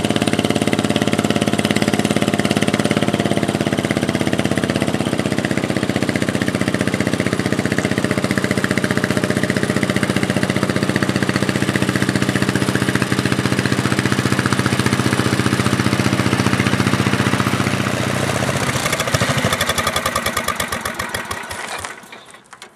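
A 1972 Sears Suburban SS15 garden tractor's engine running steadily under load while pulling a 920 lb water-filled steel lawn roller. About three-quarters of the way through, the engine slows, its firing strokes spacing out, and it stops shortly before the end.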